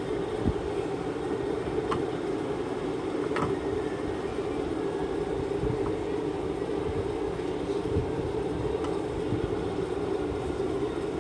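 Steady low background drone that does not change, with a few faint light clicks about half a second, two, three and a half and eight seconds in.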